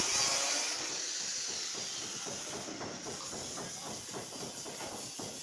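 Hiss of a power cutting tool on stainless-steel sheet, fading out in the first second or so, followed by a run of irregular small knocks and rattles of the cut metal pieces being handled.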